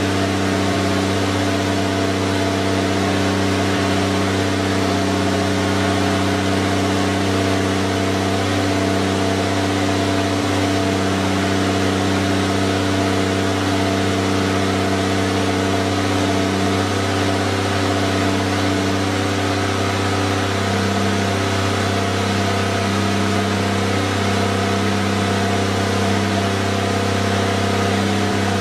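Mercedes 300TE engine idling steadily, its idle speed held by the Megasquirt's idle control valve. The note changes slightly about twenty seconds in.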